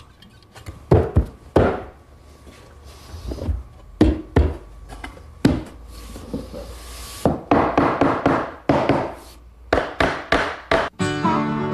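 A series of wooden knocks and thunks as wood pieces are handled and tapped into place, with a quicker run of knocks in the second half and a short scraping rub now and then.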